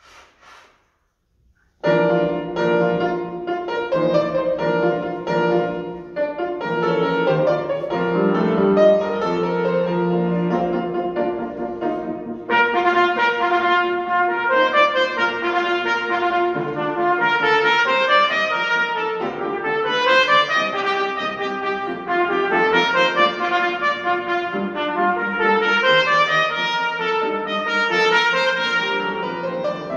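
Trumpet and grand piano playing together, both coming in at once about two seconds in after a brief pause, then carrying on without a break.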